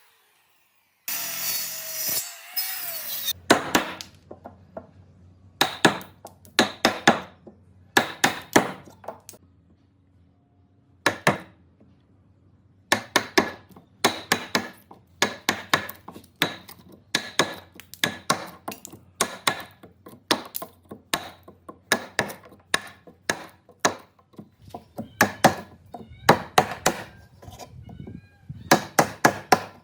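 Repeated sharp hammer blows on oak, in quick runs of several strikes with short pauses between. A power tool runs for about two seconds near the start.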